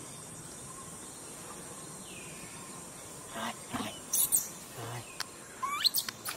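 Steady insect hum, with several short, high-pitched squeaking calls from about halfway in, one sliding sharply upward near the end, and a soft thump between them.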